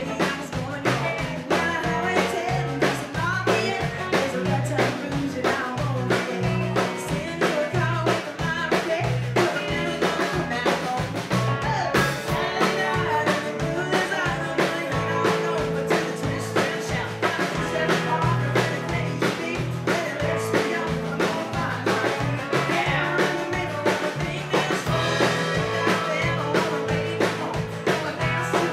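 Live country band playing: a woman sings lead over acoustic guitar, electric guitar, bass and a drum kit keeping a steady beat.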